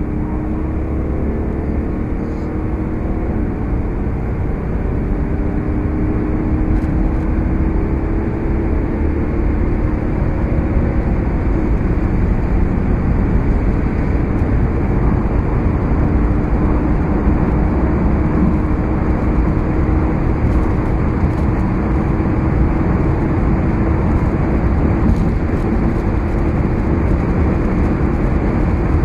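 BMW 740d's straight-six diesel pulling under full acceleration, heard from inside the cabin, its drone climbing slowly and stepping down at upshifts of the automatic gearbox in the first half. Wind and tyre roar grow steadily louder as the car builds speed from about 120 to about 240 km/h.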